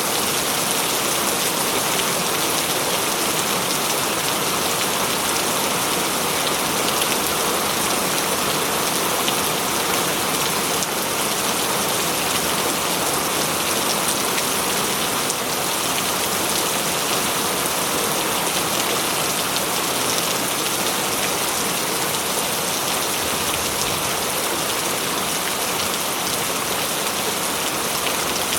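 Steady rain falling in a forest, a dense, even patter of drops on leaves and surfaces.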